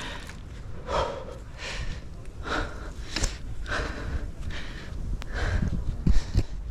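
A tree climber breathing hard from exertion, with a quick breath in or out a little more than once a second. There are a few low thumps near the end.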